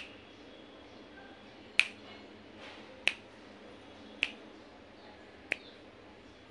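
Fingers snapping five times, about a second and a quarter apart; the last snap is softer.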